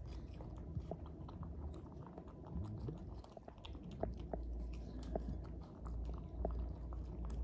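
Close-up wet chewing and small sticky clicks as ripe jackfruit flesh is eaten and pulled apart by hand, with a low rumble underneath from about halfway through.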